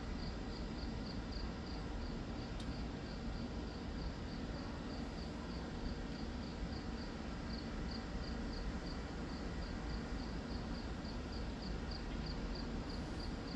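Night insects chirping in a steady rhythm, about four high chirps a second, over a low steady rumble.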